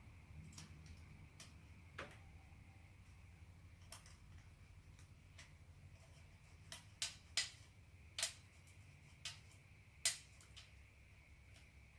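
Scattered light metallic clicks and taps from handling a bicycle quick-release skewer and threading it through the front hub, with a handful of sharper clicks clustered past the middle, over a faint low hum.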